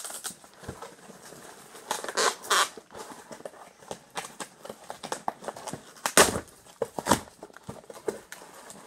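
Cardboard box being opened by hand: irregular rustling and scraping of the cardboard flaps and packing inside, with a few louder tearing bursts, the loudest about six seconds in.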